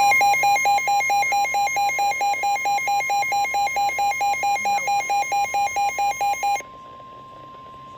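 Emergency Alert System attention tone: a loud electronic beeping alarm pulsing about four times a second over a steady high tone. The beeping cuts off suddenly about six and a half seconds in, leaving the steady tone sounding faintly.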